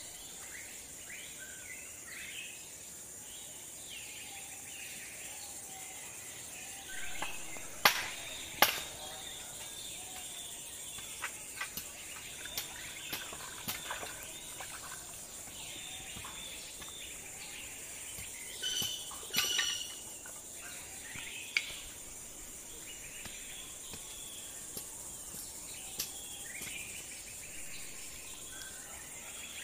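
Steady high drone of insects with scattered bird chirps. Two sharp knocks about eight seconds in, and a few more around twenty seconds.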